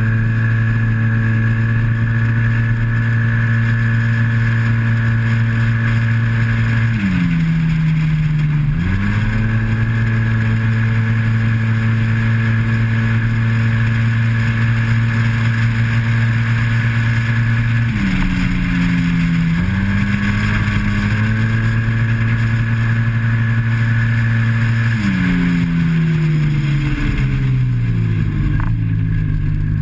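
Yamaha TMAX maxi-scooter's parallel-twin engine at full throttle, its automatic transmission holding the revs at one steady note, with wind rush. Three times, about a quarter of the way in, past halfway and near the end, the revs drop off as the throttle closes for a corner, then climb back to the same steady note.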